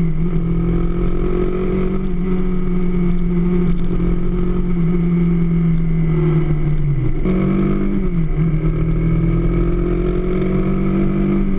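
AKT DS200 motorcycle engine running steadily, its pitch drifting slightly, then sagging and picking back up about seven seconds in.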